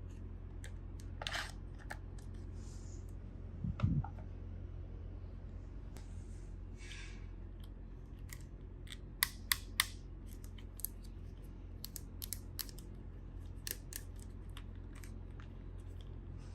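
Hands handling and opening toy packaging: scattered sharp clicks and taps, a couple of brief rustles, and a dull thump about four seconds in, over a steady low hum.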